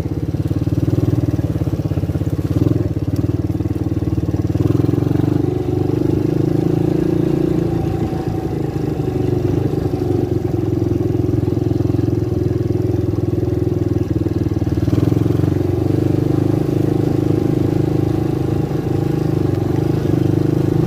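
Engine of a 250cc Lida ATV running steadily while being ridden, with only slight changes in pitch.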